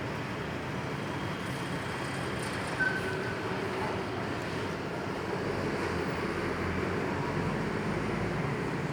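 Steady outdoor city noise during a storm, with a low rumble that swells in the second half and eases near the end, and a brief short beep about three seconds in.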